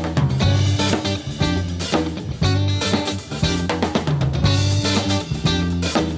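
Live band playing an instrumental disco-funk groove, the drum kit to the fore with kick, snare and rimshots over a steady bass line.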